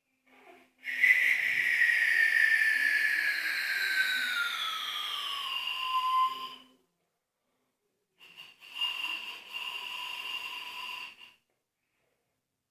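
A shrill whistle, two pitches at once: a long note of about five seconds that slides steadily down in pitch, then after a pause of a second and a half a steadier note of about three seconds.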